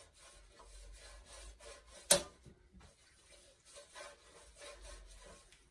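A brush swept back and forth over a round metal baking tray, spreading oil in faint repeated rubbing strokes. A single sharp click comes about two seconds in.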